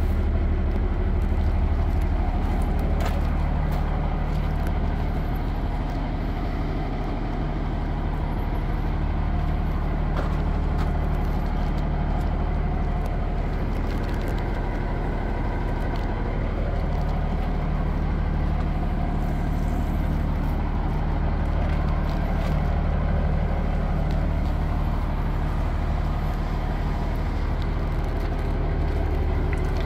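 Heavy diesel engine idling steadily, a low even drone that holds for the whole stretch.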